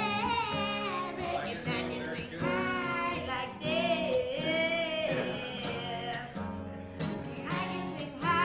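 A song: a voice singing a melody over guitar accompaniment.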